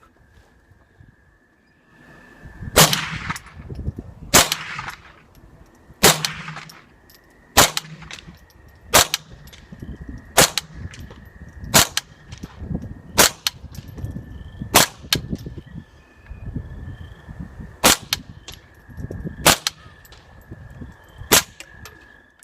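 Twelve single suppressed .22LR gunshots, one round each, roughly one every one to two seconds, with the action clanking between them. The loads step down from hyper-velocity supersonic rounds (1850 fps) through subsonic to a .22 shotshell at about 1000 fps. The first few shots ring on longer than the later ones.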